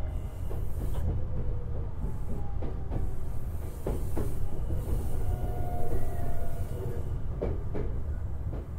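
Semboku Rapid Railway 7020-series electric train running, heard from inside the car over the motor bogie: a steady low rumble of wheels on rail, with several sharp clicks at uneven spacing and a faint tone from the Hitachi two-level IGBT drive equipment.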